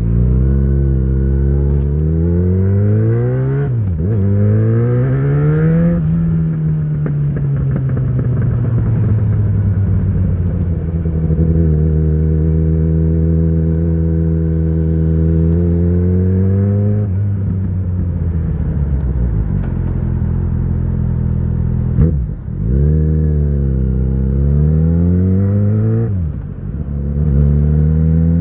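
2013 Yamaha XJ6's inline-four engine through an Ixill full exhaust with the dB killer fitted, accelerating through the gears: the pitch climbs and drops back at upshifts about 4 and 6 seconds in. It then settles into a steady cruise, eases off, and pulls hard again with two more quick upshifts near the end.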